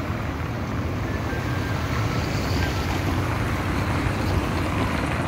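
Street traffic: a car driving past on a city street, over a steady low rumble.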